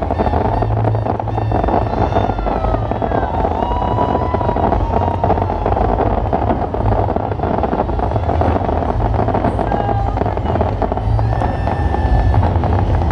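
Fireworks going off in continuous rapid succession: dense crackling over a low rumble, with thin whistling tones gliding up and down through it.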